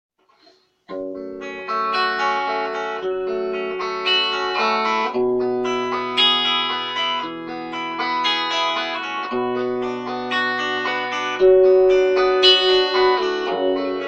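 Instrumental song introduction led by guitar, starting about a second in, with sustained chords over a bass line that change every few seconds.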